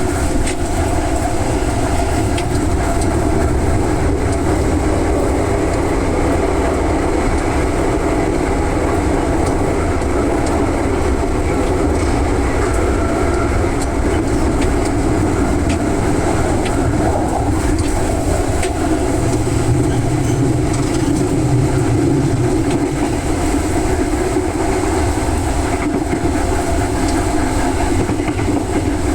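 Electric commuter train running steadily, with wheels clicking over rail joints. A low hum swells briefly about twenty seconds in.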